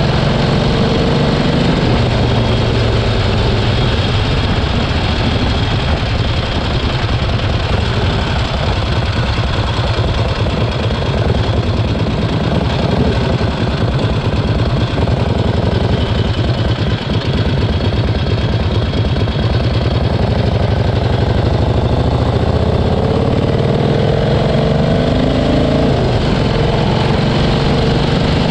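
1971 Harley-Davidson Ironhead Sportster XLCH's air-cooled V-twin engine running steadily, with the engine speed rising and falling a few times in the second half.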